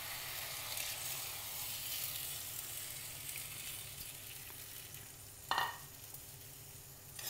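Chicken, potatoes and pepper masala sizzling in a hot clay pot as water is poured in: a steady hiss. A brief sharp sound comes a little over halfway through.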